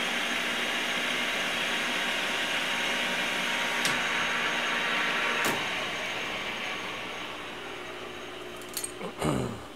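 Emco V13 metal lathe running, turning a bar of leaded 41L40 steel: a steady whir with many even tones from the spindle drive and the cutting tool. Past the halfway point the cut ends and the sound gradually eases off, with a few short knocks near the end.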